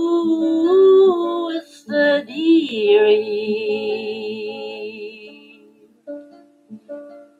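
A woman singing long held notes with vibrato to her own acoustic guitar. The voice fades out about six seconds in, leaving the guitar playing picked notes alone.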